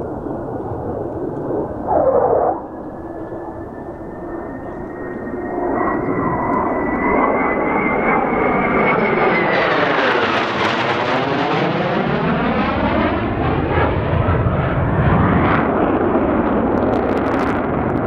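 Mitsubishi F-4EJ Phantom II's twin General Electric J79 turbojets approaching with a high whine, then passing overhead about ten seconds in: the whine drops in pitch and the jet roar swells with a sweeping, phasing rush, staying loud as the jet banks away. A brief louder noise cuts in about two seconds in.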